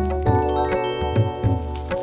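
Background music with a steady beat, with a quick run of high, bell-like notes about half a second in.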